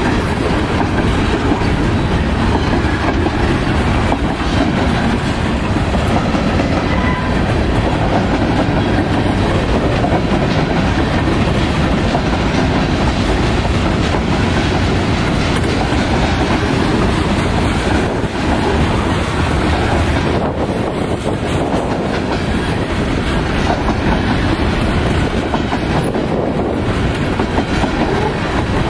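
Norfolk Southern freight train of covered hopper cars rolling past at close range: a steady loud rumble of wheels with rapid clickety-clack over the rail joints.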